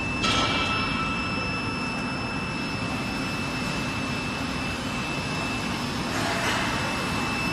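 Machinery of a potato chips/french fries processing line running in a factory hall: a steady mechanical hum with a constant high-pitched whine. A brief rush of hissing noise comes about a quarter second in and again near the end.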